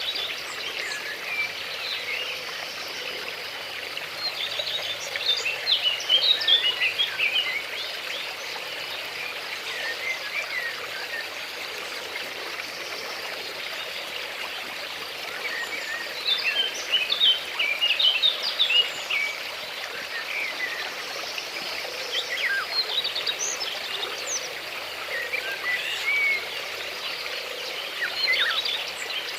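Flowing stream with birds chirping: a steady rush of water, with several bursts of quick, high bird chirps over it.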